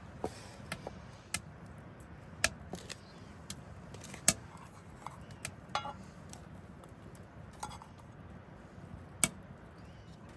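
Camp cooking utensils clinking and knocking against metal cookware, a dozen or so irregular light clinks, a few with a brief ring, the sharpest about four seconds in and about nine seconds in.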